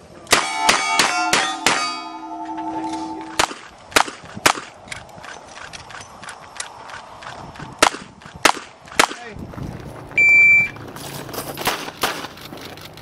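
A quick string of revolver shots with steel plates ringing after the hits in the first two seconds, then single shots spaced about half a second to a few seconds apart. About ten seconds in a shot timer gives one steady beep, and a fast string of revolver shots follows.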